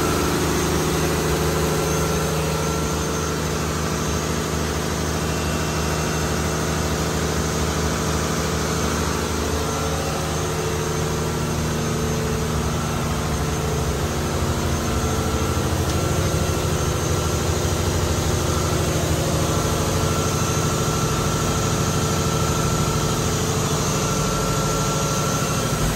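Marine diesel engines running steadily in a fishing vessel's engine room, a constant hum with many held tones and no change in speed.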